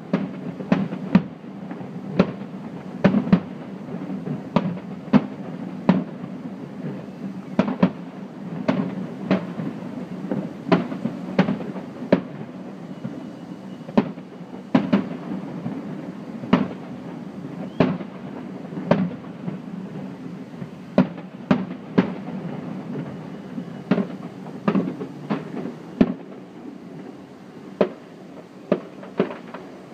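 Aerial fireworks shells bursting in a display: a string of sharp bangs, about one to two a second at irregular intervals, over a steady low background rumble.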